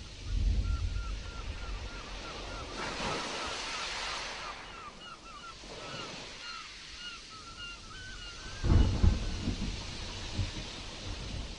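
Stormy sea surf washing and hissing, with a louder wave about three seconds in, and wind buffeting the microphone in low gusts at the start and again near the end. Through the middle runs a quick series of short, repeated high chirps, about two to three a second.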